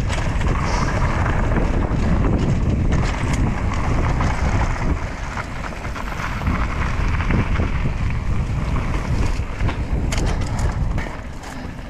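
Wind buffeting the microphone of a riding mountain biker's camera, over a steady low rumble of the bike on the trail, with a few sharp rattles or knocks near the end.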